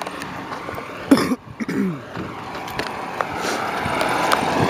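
A hand-pulled utility cart's wheels rolling and rattling over a concrete sidewalk, with short knocks and clicks, getting a little louder toward the end.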